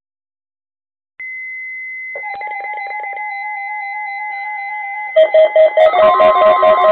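Instrumental intro music. It opens about a second in with a held high tone, and a pulsing melodic figure joins it. About five seconds in, a louder, fuller part with a steady beat comes in.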